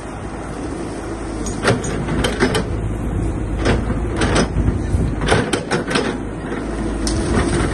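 Caterpillar hydraulic excavator's diesel engine running steadily as the bucket pushes through brush, with about nine sharp cracks of branches snapping, spread across the stretch.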